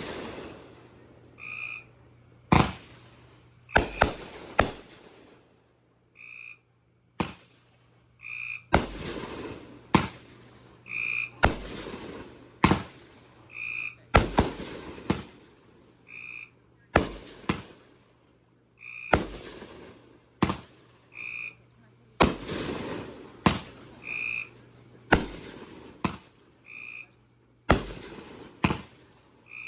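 Consumer fireworks going off in quick succession: sharp bangs every second or two, several followed by a longer crackling hiss. A short high chirp repeats about every one and a half seconds behind them.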